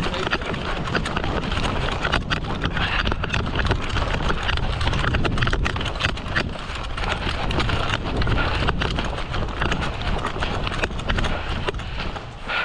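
Running footsteps with gear rattling and rustling, a dense, uneven stream of thuds and clicks over a low rumble of movement.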